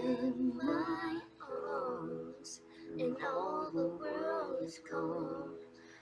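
A woman singing a slow, romantic waltz in phrases over a recorded instrumental accompaniment of held chords.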